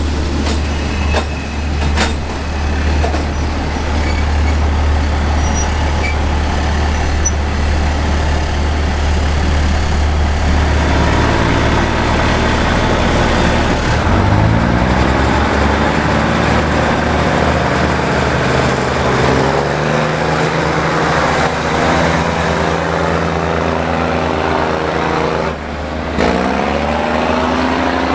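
Hitachi RHN diesel railcar's engines revving up as it pulls away on the next track, the pitch climbing, dropping back and climbing again with each gear change, over a steady low diesel rumble. A few sharp clicks come about two seconds in.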